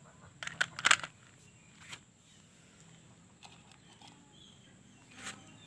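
Toy car knocking and clattering against other plastic toys as it is dropped into a plastic basket: a quick run of sharp clicks within the first second, followed by a few lighter taps.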